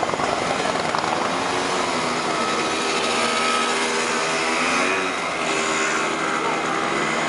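Small motor scooter engines running and pulling away, their pitch rising and falling as they accelerate.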